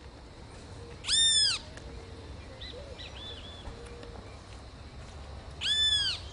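A bird calls twice, about four and a half seconds apart. Each call is a short, clear, high note that rises and falls. Fainter high chirps come between the calls.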